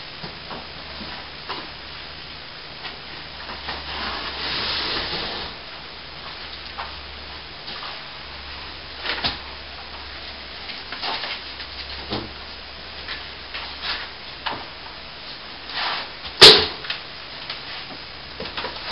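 Scattered knocks, clatters and scrapes from fallen plasterboard debris being cleared up, with one sharp, loud bang about two-thirds of the way through.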